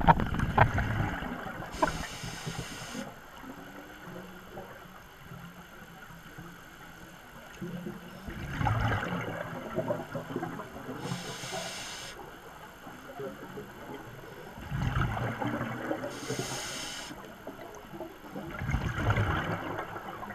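Scuba diver breathing underwater: a short hiss through the regulator on each inhale alternates with a rough, bubbling burst on each exhale, over several slow breaths.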